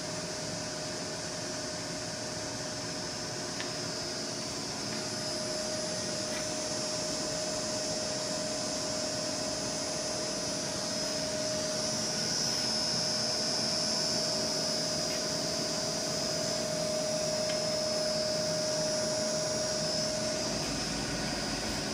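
Bridgeport-Romi EZ Path CNC lathe running with its spindle and chuck turning: a steady machine whir with a high hiss. A steady whine grows over the first few seconds and stops near the end.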